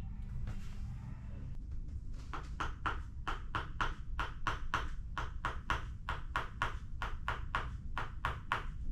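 Rhythmic wooden tapping, about four knocks a second, starting about two seconds in: a Tok Sen mallet striking a wooden wedge during a massage treatment.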